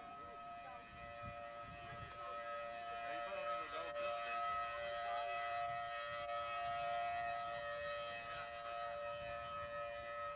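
Outdoor tornado warning siren sounding a steady two-tone wail, swelling louder through the middle and easing slightly near the end.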